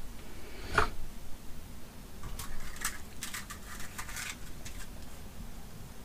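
Tools being handled on a workbench: a single short knock, then a quick run of light clicks and rattles, as the soldering iron and solder are brought to the connector.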